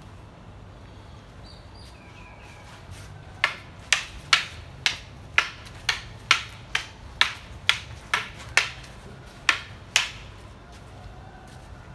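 Wooden Krabi-Krabong practice swords clacking together in a sparring exchange: about fourteen sharp strikes, roughly two a second, starting a few seconds in and stopping near the end.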